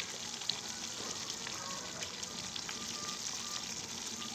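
Buffalo-milk cream frothing and sizzling steadily in a kadhai on a low flame as it renders into ghee, with many small crackling pops. This is the stage where the ghee is separating out of the cream.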